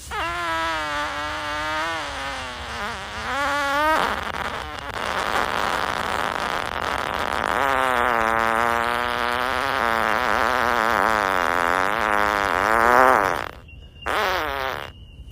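A man farting loudly at length: a wavering, pitched fart lasting about four seconds, a stretch of airy hiss, then a long pitched fart of about six seconds, and a short one near the end.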